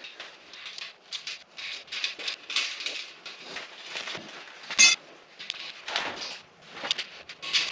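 Small steel hardware and sheet-steel workbench frame parts clinking and knocking as cross panels are bolted on by hand, with one sharp ringing metal clink about five seconds in.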